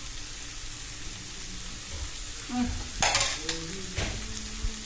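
Chicken pieces and sliced vegetables sizzling in a frying pan on a gas stove while being stirred, with a louder spatula scrape against the pan about three seconds in.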